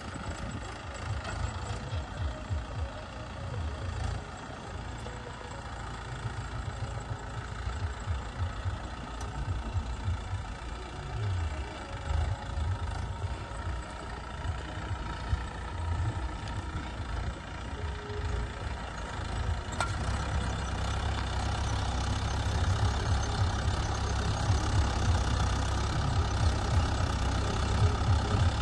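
A Mahindra Yuvo Tech+ 585 DI 4WD tractor's diesel engine running under load as it pulls a tillage implement through dry soil, growing louder toward the end as the tractor comes closer.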